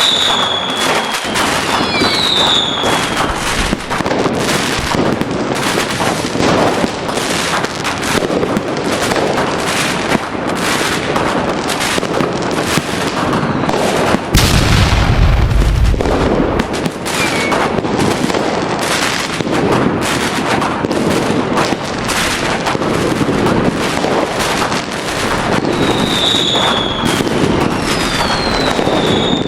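Dense fireworks barrage: rapid, continuous crackling bangs, with whistling fireworks falling in pitch near the start and again near the end, and one deep boom about halfway through.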